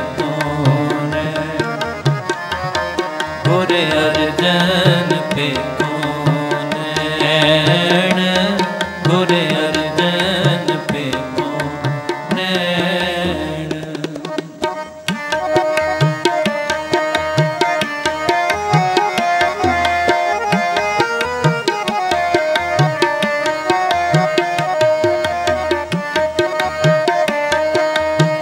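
Sikh kirtan accompaniment: harmonium held chords with tabla keeping a steady rhythm. For roughly the first half, voices sing the shabad over them in phrases; then the harmonium and tabla carry on alone as an instrumental passage.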